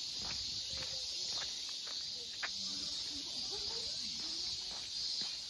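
Steady, high-pitched chorus of insects in summer woodland, with scattered footsteps on the path.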